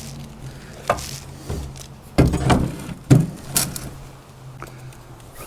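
Irregular knocks and clatters of boards and tools being handled at a sawmill, loudest in a cluster around the middle, over a low steady hum.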